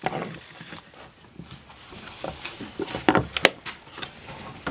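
Light knocks and clicks of a plastic pocket-hole jig (Kreg Jig Jr.) being picked up and set down again on a plywood panel, with a few sharper clicks about three seconds in.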